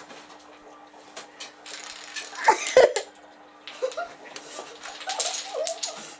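Wooden Jenga-style blocks toppling one after another in a chain: a rapid clatter of small clicks that comes in two runs, with a short loud cry about two and a half seconds in and a few high squeaky calls near the end.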